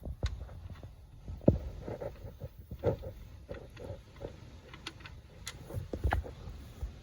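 Scattered light knocks and clicks of hands and tools working under the car at the oil drain plug and catch can, over a faint low rumble; one sharper knock about a second and a half in and another cluster near the end.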